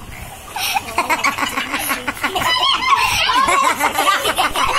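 People laughing and giggling, with a child's high-pitched voice among them, starting about half a second in.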